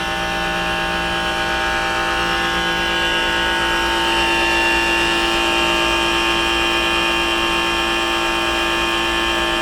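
Trane compressor in a pool dehumidifier running loud and steady with a many-toned mechanical hum and a high tone that drifts slightly upward. The owner takes the noise for something coming loose inside the worn compressor.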